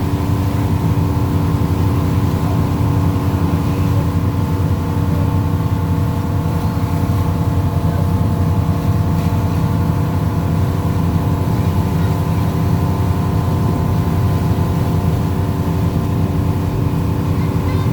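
Fishing boat's engine running steadily: a constant loud drone with a steady hum that neither rises nor falls.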